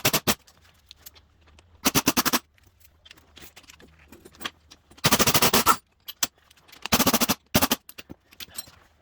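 Wrench backing the spring compressor off a car coil spring: short bursts of rapid mechanical clicking, the longest about five seconds in.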